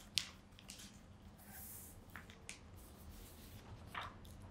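Faint rustling and soft clicks of binder pages and printed sheets being turned and handled, with a brief sliding hiss partway through and a louder rustle near the end.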